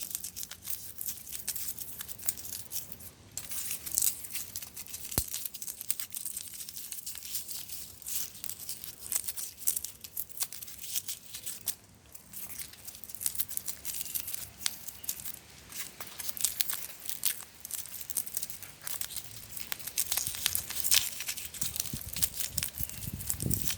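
Rigid foam insulation board being broken into small pieces: a continuous run of dense, high-pitched crackling and crunching snaps.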